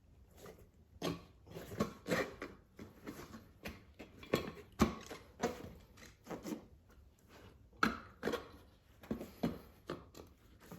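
A Shinko 244 tire being worked by hand onto a wheel rim, the soapy rubber bead rubbing and sliding over the rim edge with irregular knocks and slaps, one or two a second.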